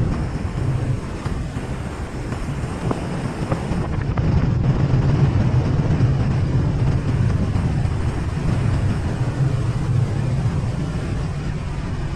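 Wind rushing and buffeting over the microphone of a camera mounted on a moving bicycle, a loud, steady, low rumble.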